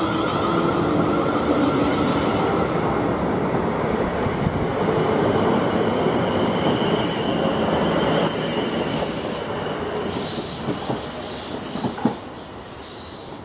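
Class 450 Desiro electric multiple unit pulling out and running past close by, with traction motor whine and steady wheel-on-rail rumble. High squealing from the wheels comes in about halfway through, and the sound drops off sharply near the end.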